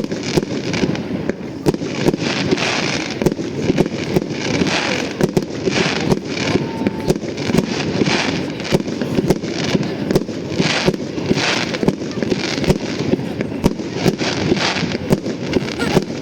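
Aerial fireworks display: a rapid, unbroken string of sharp bangs from bursting shells, several a second, mixed with stretches of hissing crackle.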